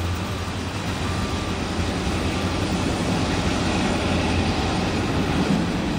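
Norfolk Southern freight train rolling past close below: a steady rumble of the cars on the rails, with the diesel locomotives working at the head as they enter the tunnel.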